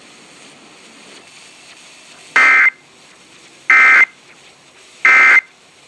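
Emergency Alert System end-of-message (EOM) data bursts: three short, identical bursts of two-tone digital data, a little over a second apart. They signal the end of the alert.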